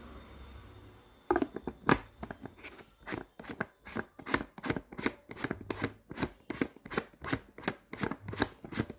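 Parts of a steel or plastic vacuum flask being handled and twisted by hand. A quick, steady run of short scraping strokes, about three a second, starts about a second in.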